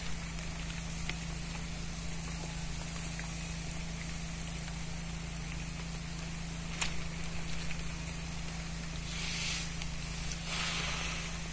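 Spray pump motor running with a steady low drone. There is a sharp click about seven seconds in, and two short bursts of hiss near the end.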